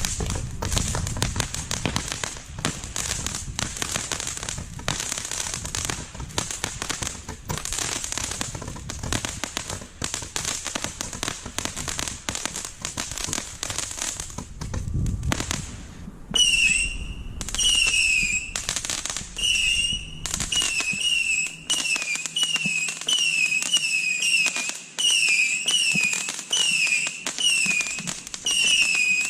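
The Guy Fawkes 'Ammo Crate', a 1.3G firework cake, firing. For about the first half there is a dense, rapid stream of bangs and crackles. Then short falling whistles repeat about once a second, with shots between them.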